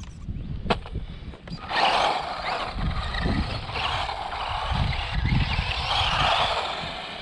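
Small electric RC car with a brushed motor driving off-road. A sharp click comes in the first second, and from about two seconds in a wavering motor whine mixes with tyre and gravel noise.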